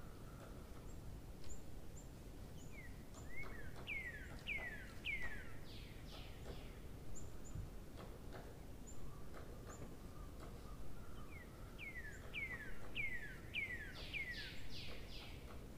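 A bird calling: two runs of quick, downward-sliding whistled notes, about five to seven in each, the first about three seconds in and the second near the end, over a steady background hiss with scattered faint clicks.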